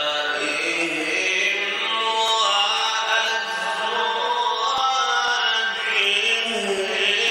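A male Quran reciter chanting in the melodic mujawwad style, holding long, ornamented notes that slide up and down in pitch, into a microphone.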